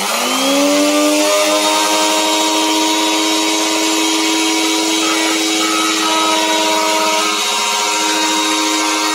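Handheld electric wood router spinning up to speed, its whine rising over about the first second, then running steadily at high speed as it routes a design into a wooden board.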